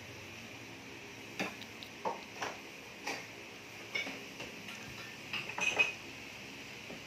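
Scattered clinks and clatter of dishes and utensils being handled, a sharp knock every second or so, busiest just before the end, over a steady background hum.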